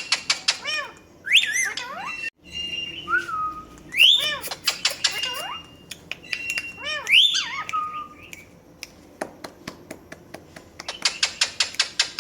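Parrot calling in a run of swooping whistled notes that rise and fall, with rapid sharp clicks between the calls and a dense burst of clicking near the end.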